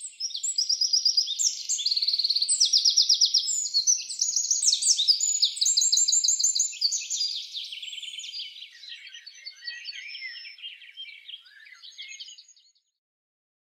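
Woodland songbirds singing: fast trills and runs of quickly repeated high notes that fade out gradually and stop about a second before the end.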